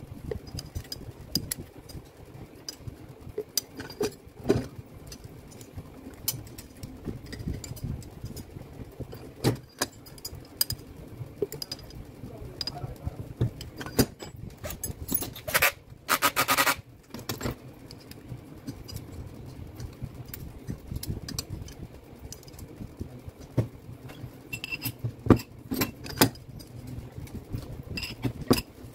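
Scattered metal clicks and clinks as an Allen key turns bolts and the tool retainer is fitted on a Makita HM1306 demolition hammer, with a harsher metallic rattle lasting about a second just past halfway.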